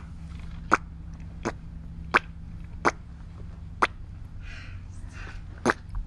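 Squidward's squishy footstep sound from SpongeBob, imitated by a man with his mouth: short wet plops in time with a walker's steps, about one every three-quarters of a second, with a pause before the last one.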